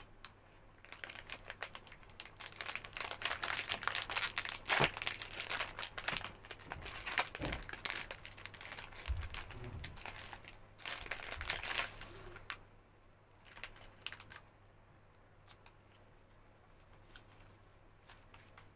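Plastic wrapper of a chocolate monaka ice cream sandwich crinkling as it is unwrapped by hand. The crackling is dense for about the first twelve seconds, then dies down to a few small crackles.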